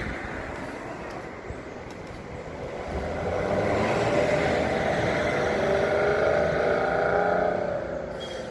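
A motor vehicle engine running. It grows louder about three seconds in, holds a steady pitch, and then eases off and drops slightly in pitch near the end.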